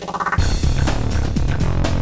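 Music for an animated logo sting: a quick pulsing figure that breaks, about half a second in, into a loud, sustained, bass-heavy hit.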